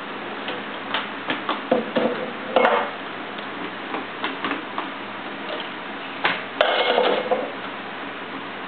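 Dishes clattering and clinking as they are put into a kitchen drawer: a run of quick knocks a second or two in, then a louder clatter with a brief ring a little past the middle.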